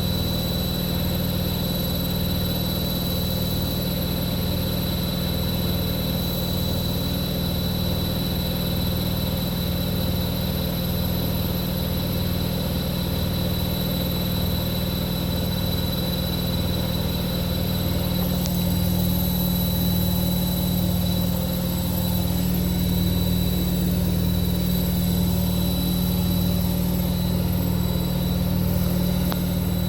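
Continental Edison washing machine spinning at 1200 rpm: the drum motor runs with a steady whine and a fast rhythmic hum, growing a little louder about two-thirds through.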